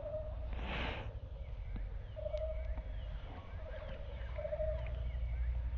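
Fishing reel cranked in short bursts, each a steady whirring tone of about half a second, as the line is wound in across the water. A brief rushing noise just before a second in.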